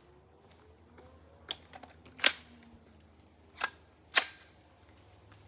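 Four gunshots in under three seconds: a lighter one about a second and a half in, then three louder ones, the second and fourth the loudest, each with a short ringing tail.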